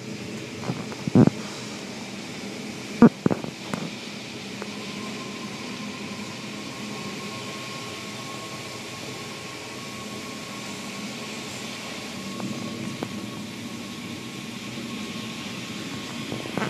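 Automatic car wash machinery running: a steady whir of motors and spraying water as the cloth wash strips swing against the car. There are a few loud thumps in the first few seconds, and a thin steady whine sets in about four and a half seconds in.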